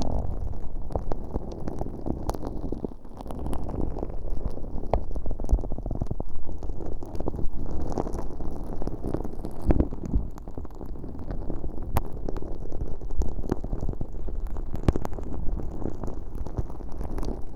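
Sticky, fairly firm glitter slime being worked against the bare ear openings of an ear-shaped microphone in both ears at once: a continuous low squelching crackle with frequent small sticky clicks.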